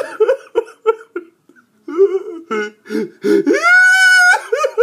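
A man fake-crying in a put-on old woman's high voice: short choppy sobs, a brief pause, then one long high wail near the end, followed by more sobs.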